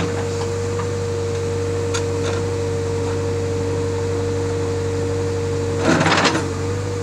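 JCB backhoe loader's diesel engine and hydraulics running steadily, a low hum with a steady whine over it, as the backhoe bucket digs into an earth bank. About six seconds in, a short, loud clatter as the bucket tears soil, roots and stones out of the bank.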